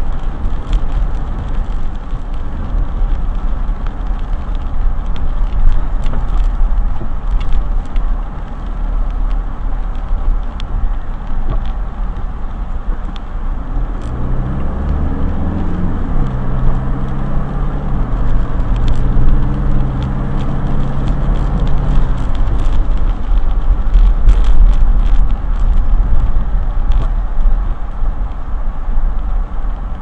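Car interior road noise picked up by a dashcam: a steady low rumble of engine and tyres on a wet road, with scattered light clicks. From about 14 s to 22 s a deeper pitched engine drone rises and then holds before fading.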